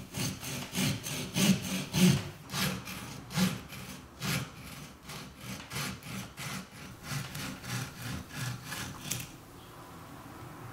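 Small pruning saw cutting through a living Japanese maple bonsai trunk with quick back-and-forth rasping strokes, about two to three a second. The strokes stop about nine seconds in, when the cut is through.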